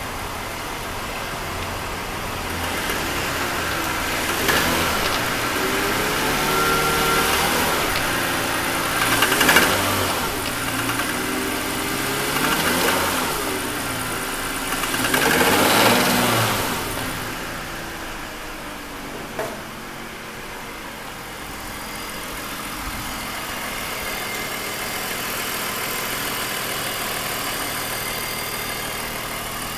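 BMW E39 530i's 3.0-litre straight-six engine revved in about four short blips, then settling back to idle, with one short sharp tap after the revving. The engine has developed an abnormal noise whose cause is not yet known.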